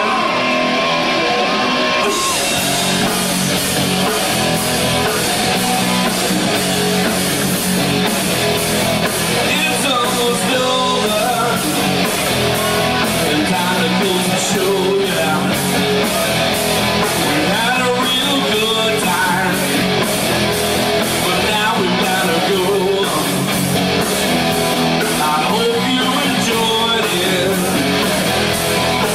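Rock band playing live: guitar and drums keeping a steady beat, with singing.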